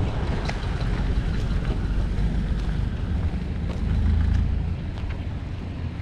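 Low, uneven rumble of wind buffeting the microphone while walking outdoors, swelling about four seconds in, with a few faint ticks above it.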